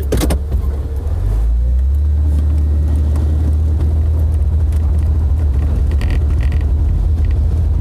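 Jeep driving, a low steady rumble of engine and road noise that grows louder a little over a second in and then holds steady.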